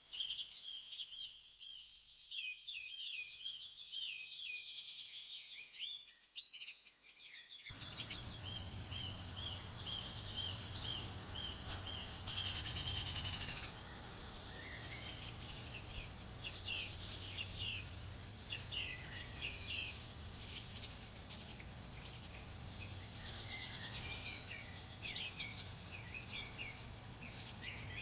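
Many birds chirping in quick, short high notes. About twelve seconds in, one loud, high, steady call sounds for about a second and a half and dips in pitch as it ends. From about eight seconds in, a steady background hiss runs underneath.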